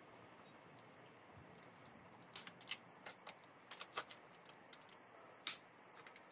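A plastic vacuum-sealed meat pack being peeled open by hand: a scattering of short, sharp plastic crackles and clicks starting about two seconds in, with the first two seconds nearly silent.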